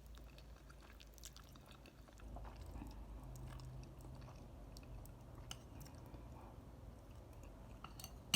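Quiet close-up chewing of spicy instant noodles, with faint scattered mouth clicks.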